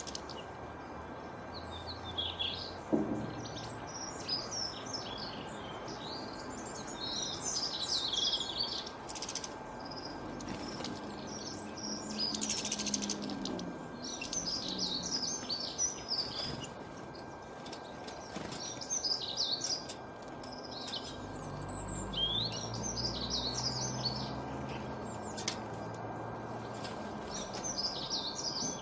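Small birds chirping and singing in repeated bursts of quick, high twittering notes, over a steady background hiss.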